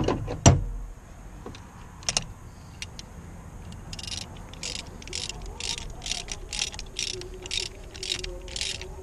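Socket ratchet clicking in short back-strokes, about two clicks a second, while a brass oil-feed T fitting is tightened into the aluminium block of a Subaru EJ25D. Two sharp metal clinks come right at the start.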